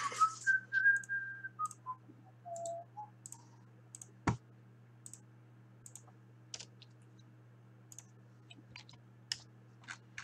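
Scattered sharp clicks of a computer mouse and keyboard, one louder than the rest about four seconds in. In the first three seconds a man whistles a short phrase that falls in pitch, over a steady low hum.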